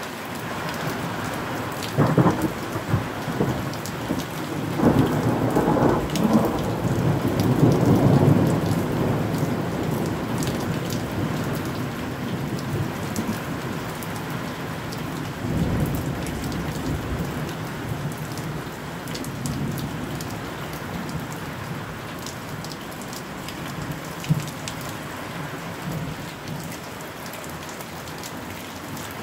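Thunder over steady rain: a sharp crack about two seconds in, then a long loud rolling rumble for several seconds, with a second rumble about halfway through. The rain keeps up a steady hiss throughout.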